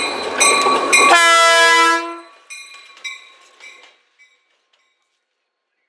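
Pan Am Railways diesel freight locomotive blowing its horn as it approaches, over engine and rail noise. About a second in comes a loud, steady horn blast that stops abruptly a second later, its echo dying away within another two seconds.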